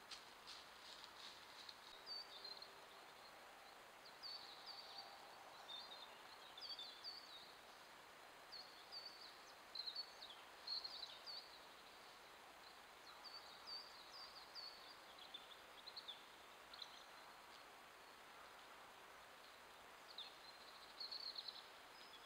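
Faint woodland ambience: a small songbird's short, high chirps repeat in brief clusters over a steady low hiss.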